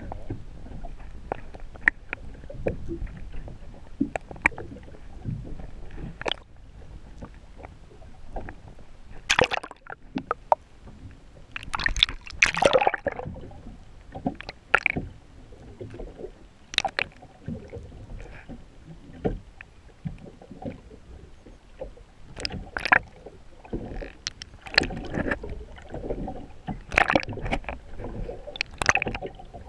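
Sea water sloshing and gurgling against a boat's hull, heard from a camera just under the surface, with irregular sharp splashes and knocks. The loudest cluster comes about twelve seconds in.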